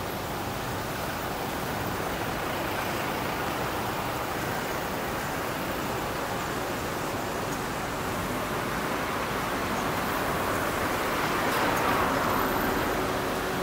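Steady street traffic noise, with a car passing close near the end, its engine and tyre noise swelling and then fading.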